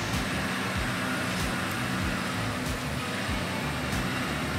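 Komptech Crambo 5200 shredder running steadily while tree stumps are fed into its hopper, with scattered knocks over the even machine noise.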